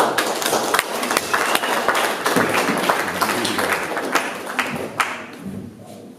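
Audience applauding, starting suddenly and fading out near the end.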